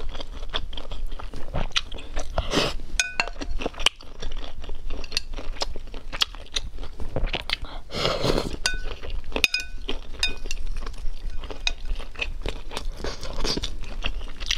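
Close-up eating sounds: chewing and crunching of spicy instant noodles and shrimp, with a few ringing clinks of chopsticks against the bowl.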